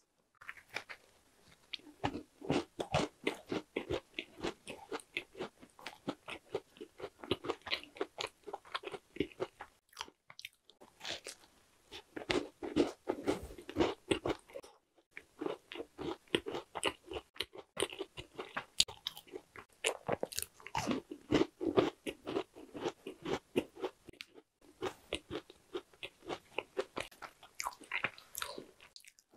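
Close-miked crunching and chewing of a chocolate marshmallow tart with a crisp pastry shell: dense crackly bites and wet chews, stopping dead briefly three times.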